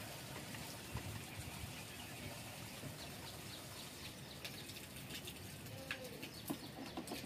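Faint outdoor background with scattered short bird chirps, and a brief gliding bird call about six seconds in.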